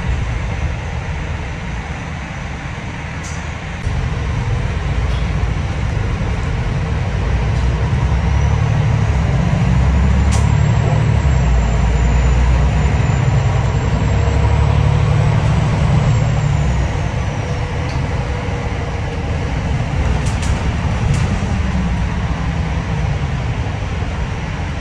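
MAN ND323F double-decker bus under way, heard from inside the passenger cabin: a low engine and road rumble that grows louder about four seconds in. Over the middle, a high whine rises, holds and then falls away.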